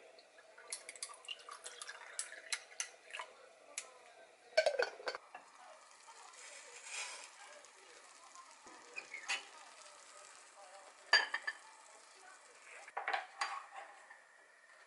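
Ice clinking in a glass as iced tea is poured over it, then sharp knocks and clatter of dishes and an earthenware pot being handled and set down on a wooden tray. A brief hiss comes near the middle.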